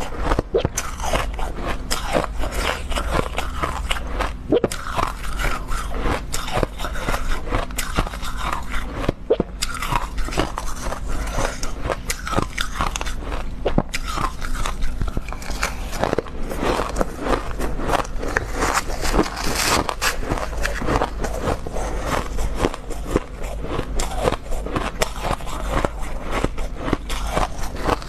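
Close-miked crunching and chewing of mouthfuls of freezer frost ice, a rapid run of crisp crackles, with a metal spoon scraping the frost in a metal bowl.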